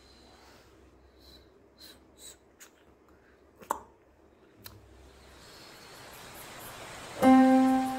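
Quiet room tone with a few faint clicks, one sharper than the rest, then plucked-guitar background music starts loudly about seven seconds in.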